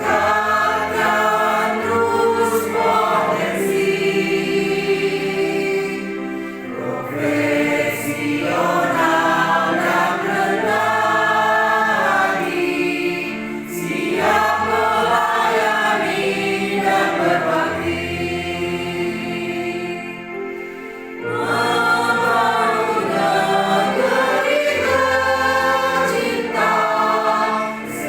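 Choir singing a song, its phrases broken by brief pauses.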